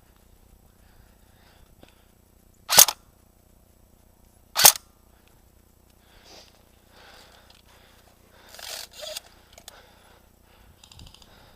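Two loud, sharp airsoft gun shots about two seconds apart, followed by softer rustling and scuffing sounds.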